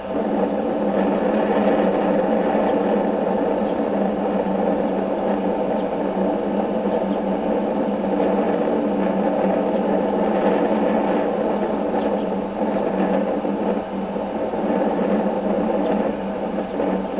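Steady mechanical hum with a few fixed tones, starting and stopping abruptly.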